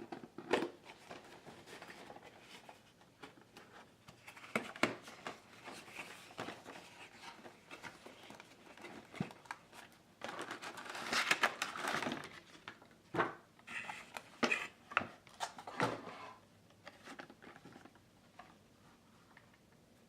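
Toy car packaging being opened by hand: crinkling and rustling in several spells, the longest about ten seconds in, with scattered small clicks and taps.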